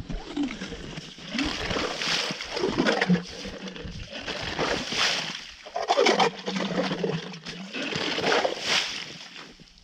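Hand ice auger being cranked through wet, slushy ice: repeated crunching and sloshing of slush and water, swelling and fading every second or so.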